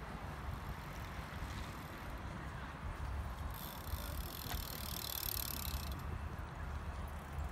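Road bicycles passing, with a brief high buzz of a freewheel hub from about halfway through as a rider coasts by, over a steady low rumble.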